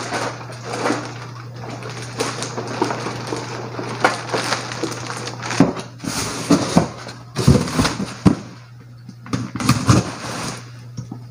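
Rustling of a large plastic bag full of plastic bottles and containers, then cardboard boxes being handled, opened and folded, with scattered knocks and clatters, under a steady low hum.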